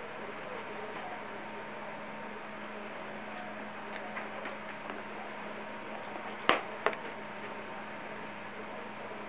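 Steady electrical hum, with a few faint ticks and then two sharp clicks close together about two-thirds of the way in.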